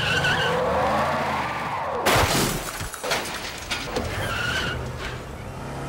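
BMW X5 accelerating hard: tyres squealing at the start and again about four seconds in, with the engine revving up and down. A sharp crack comes a little after two seconds.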